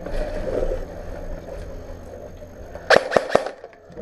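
A low steady rumble, then about three seconds in three or four sharp cracks in quick succession.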